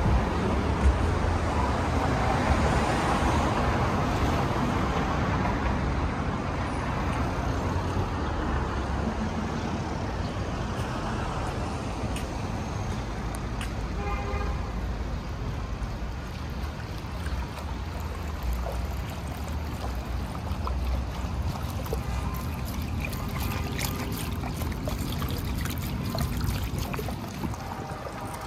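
Street traffic and a low wind rumble, giving way in the last third to close-up water from a small slab fountain running and splashing over smooth river pebbles. A short horn toot sounds about halfway through.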